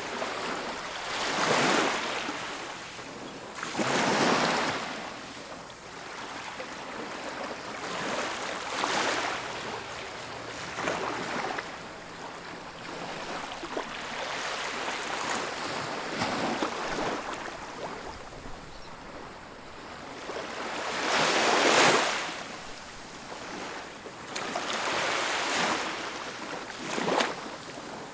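Ocean waves breaking and washing up on a beach, rising and falling in swells every few seconds; the loudest wave breaks about three quarters of the way through.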